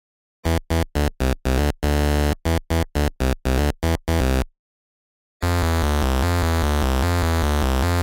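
8-bit chiptune synthesizer sounds: a quick run of short electronic blips for about four seconds, a gap of about a second, then a continuous low buzzy line that alternates rapidly between notes.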